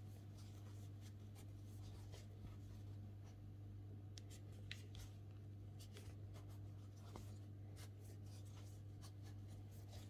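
Faint rubbing and soft scattered clicks of a metal crochet hook drawing thick T-shirt yarn through stitches, over a steady low hum.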